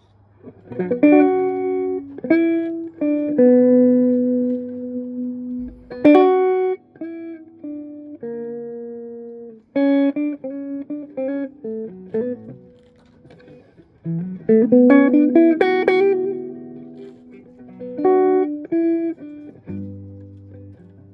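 Electric guitar played clean, without distortion, through a Mesa Nomad 55 amp: picked notes and chords that ring out, in short phrases with brief pauses between them.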